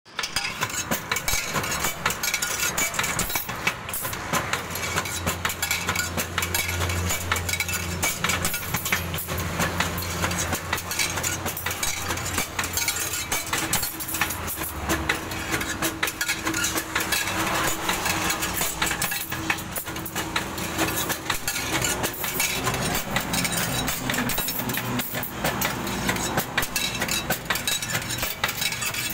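Stirrup bending machine running, bending steel rebar into stirrups: a continuous clatter of metallic clinks and knocks over a low motor hum that dies away about halfway through.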